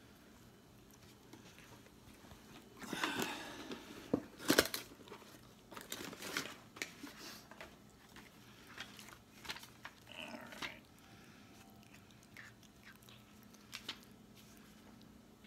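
Domestic cat biting and chewing at a long beard close to the microphone: irregular crunchy clicks and crackles of teeth pulling through hair, the loudest about three to five seconds in and then sparser.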